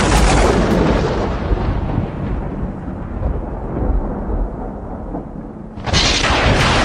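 Booming rumble sound effect under an animated title: a loud, thunder-like burst that rolls and slowly fades, then a second burst breaks in near the end.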